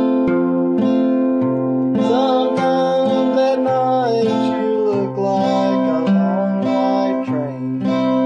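Steel-string acoustic guitar fingerpicked in a steady pattern, its bass notes alternating about every half second. A man's voice sings a slow melody over it from about two seconds in.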